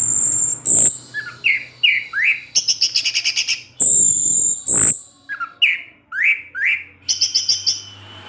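Orange-headed thrush singing a varied, loud song: high held whistles, rapid runs of repeated notes about ten a second, and short downward-sliding notes. Two brief noisy sounds cut in, about a second in and near the middle.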